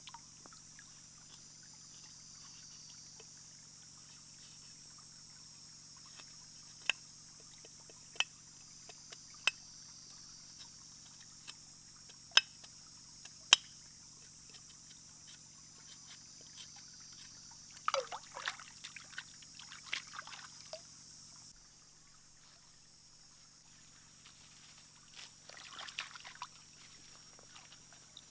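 A knife chopping galangal root: a handful of sharp clicks, the loudest about halfway through. Later, water splashes and trickles as roots are washed in a stream, over a steady high insect drone.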